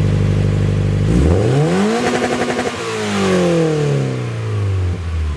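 Car engine idling, then revved once about a second in: the pitch climbs, holds briefly, and falls slowly back to idle.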